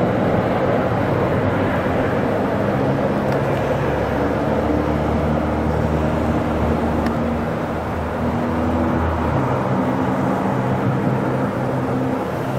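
Diesel commuter train running steadily, a low engine drone with tones that step up and down.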